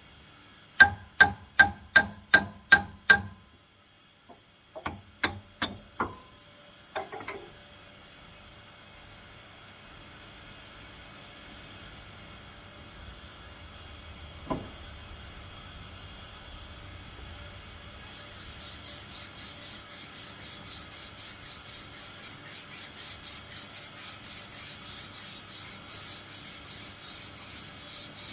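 Hammer blows ringing on steel, about three a second, then a few slower knocks, during a bearing change on a sawmill edger. From about two-thirds of the way in, steady back-and-forth rasping strokes, two to three a second, of a file or abrasive being worked on metal.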